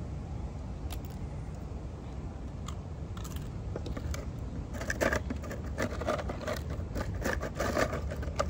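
A dog chewing a dry, crunchy treat: sharp crunches, a few at first, then coming thick and fast from about halfway through, over a steady low rumble.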